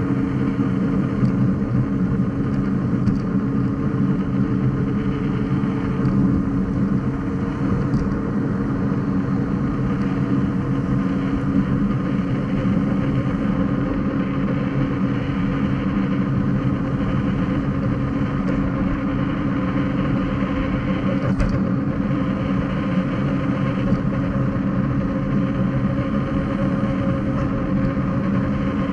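Electric unicycle cruising at a steady speed: a steady motor hum over tyre noise on asphalt, with a small knock about two-thirds of the way through.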